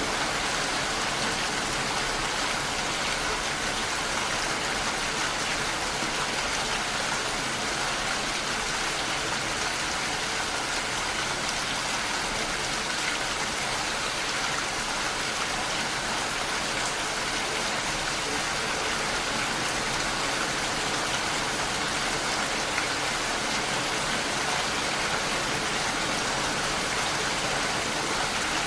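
Steady, even rain falling, a continuous hiss of drops with no let-up.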